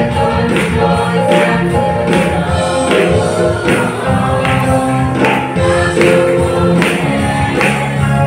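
Church choir singing an upbeat gospel song through microphones over instrumental accompaniment, with a steady percussion beat about twice a second.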